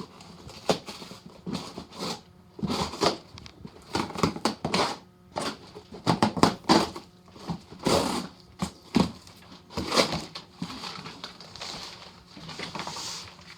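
A skateboard's shipping box and packaging being opened by hand: irregular rustling, crinkling and scraping with sharp clicks.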